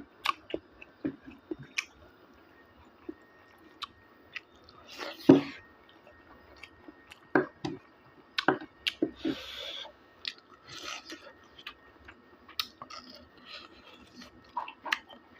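A person chewing pork and bamboo shoot with irregular wet mouth clicks and smacks, with one louder, sharper sound about five seconds in.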